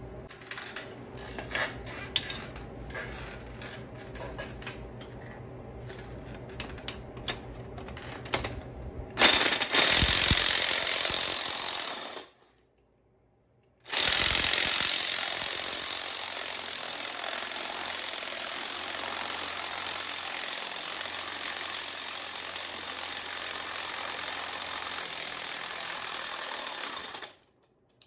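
A strut spring compressor being unwound to release the pressure on a freshly fitted lowering spring: first a run of scattered clicks, then from about nine seconds in a loud steady rattle of a power tool driving the compressor screw, broken once by a short silence.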